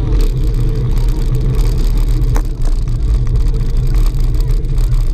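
Wind buffeting the microphone of a camera riding on a moving bicycle: a loud, steady low rumble with no pitch to it.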